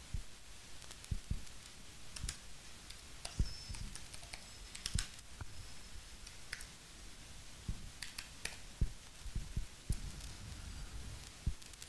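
Computer keyboard keys being typed in irregular clicks.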